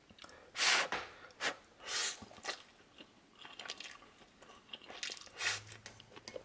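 A person eating a mouthful of instant ramen noodles: several short, noisy slurps with chewing in between, the loudest slurp just under a second in.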